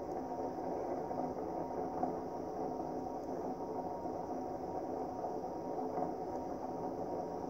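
Star 9200 mini lightbar's rotator motors running, a steady hum.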